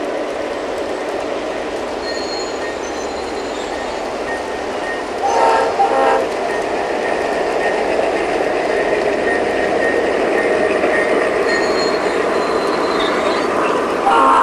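G-scale model freight trains rolling over garden-railway track, a steady clatter of many cars' wheels. About five seconds in, a model locomotive's horn sounds two short blasts, and it sounds again near the end.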